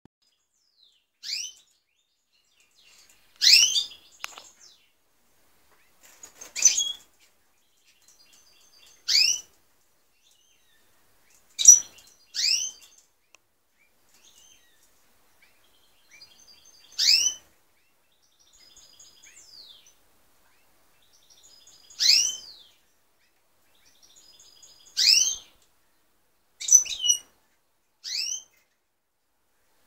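European goldfinch calling: about a dozen short whistled notes, each sweeping upward in pitch, spaced a few seconds apart, with faint soft twittering in between.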